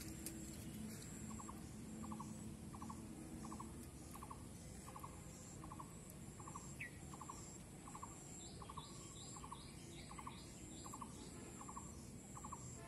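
Faint outdoor field ambience of wild animal calls: a short pulsed chirp repeats about every two-thirds of a second, over a high, thin insect-like buzz that switches on and off.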